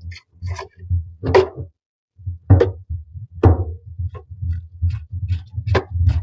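Sharp plastic clicks and knocks over uneven low thudding, from handling and screwing a new flexible hose pipe onto a washbasin fitting.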